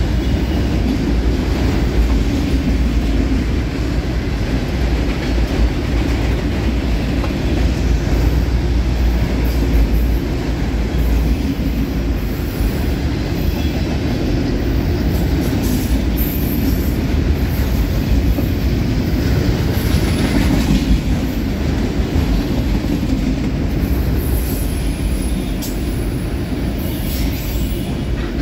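Autorack freight cars rolling past: a steady, heavy rumble of steel wheels on rail, with a thin, high-pitched wheel squeal coming and going.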